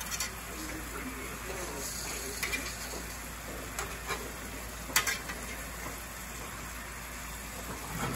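Gravy bubbling and sizzling in a hot cast-iron skillet, with several sharp clicks and scrapes of a metal slotted spatula against the pan as hamburger patties are laid into the gravy; the loudest click comes about five seconds in.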